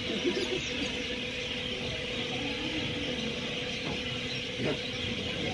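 Indian Railways passenger train rolling slowly out of a station, heard from an open coach doorway: a steady hum and hiss, with a couple of short knocks from the wheels near the end.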